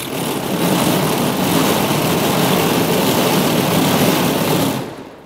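Hand-cranked garabō, the Japanese cotton-spinning machine of the Meiji era, clattering with its loud, steady 'gara-gara' rattle as its handwheel is turned; the rattle dies away near the end.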